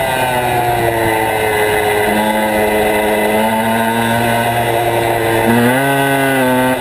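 Motorcycle engine running hard on a track, its pitch falling over the first two seconds, holding steady, then rising again near the end.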